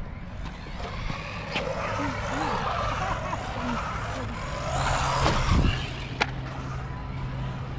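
A 1/18-scale Arrma Typhon Grom RC buggy driving on skatepark concrete: its electric motor and drivetrain run with varying throttle and the tyres scrub. There is a busier burst around five seconds in and a sharp knock just after six seconds, like the buggy landing or striking the surface.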